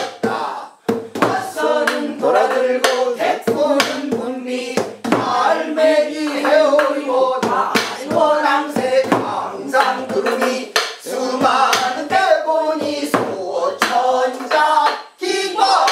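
Several voices singing a Korean folk song together, with sharp hand claps coming every half second or so.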